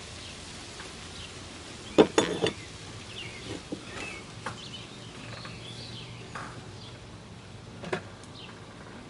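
Clatter of a small metal jointer part being handled and set down on a wooden workbench: a quick cluster of sharp clacks about two seconds in and one more near the end. Birds chirp in the background.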